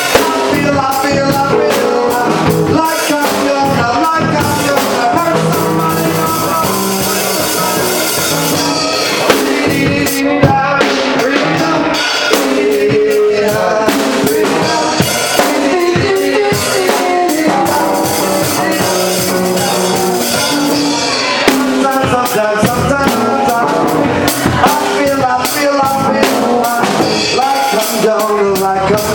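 Live band playing loud: drum kit with steady drum and cymbal hits under electric guitar and bass guitar.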